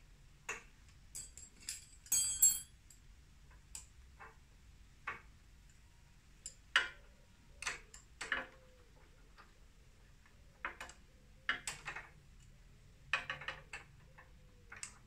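Small metal clicks and clinks of pliers against carburetor fittings at irregular intervals, with a brief ringing clink about two seconds in.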